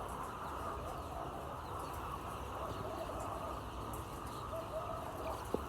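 Chickens in a poultry shed giving short, low calls again and again over a steady background hiss, with one sharp click near the end.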